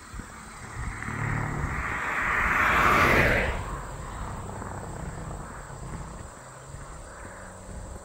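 A car passing close by: tyre and engine noise on the asphalt builds over about two seconds, peaks about three seconds in and drops off sharply as it goes past, then fades away.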